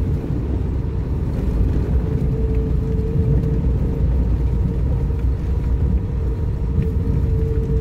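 A vehicle driving on a snow-covered mountain track: a steady low engine and road rumble with a steady whine at one pitch that grows clearer in the second half.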